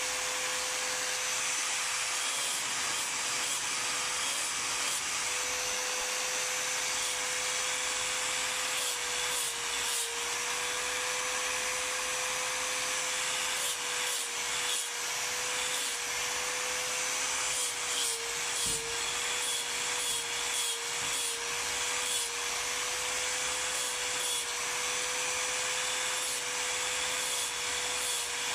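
Angle grinder running steadily with a high whine, grinding water buffalo horn against its abrasive disc with a rasping hiss. The pitch sags briefly several times, most often about two-thirds of the way through, as the horn is pressed harder against the disc.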